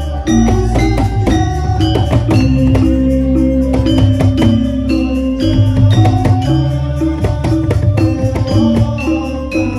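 Loud gamelan music accompanying a dance: metallophones play repeating melodic notes over heavy drumming.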